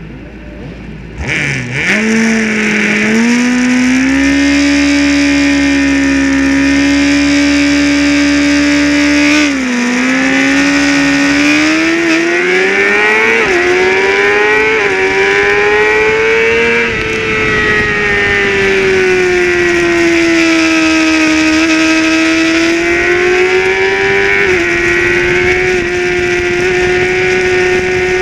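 Honda CBR600RR inline-four engine at a race start: revs held steady on the grid, then a dip about nine seconds in as the bike pulls away, the pitch climbing as it accelerates and staying at high revs, easing and rising again through the corners.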